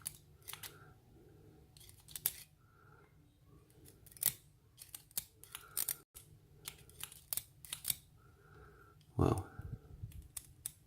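Irregular small metallic clicks and ticks of tools working inside a disassembled pin-tumbler lock cylinder, while a stuck spring is being worked free.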